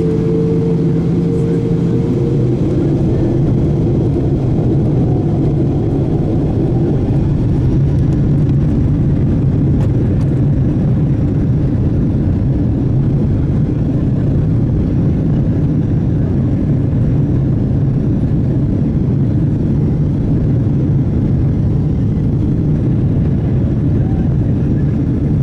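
Jet airliner's engines at take-off power and its wheels rumbling on the runway during the take-off roll, heard inside the cabin: a loud, steady rumble, with an engine tone rising slightly over the first two seconds.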